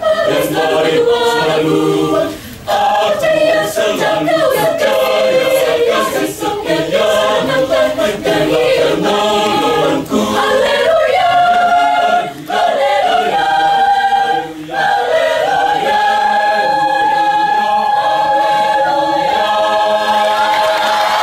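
A choir singing. The last phrase settles about fifteen seconds in onto one long held chord.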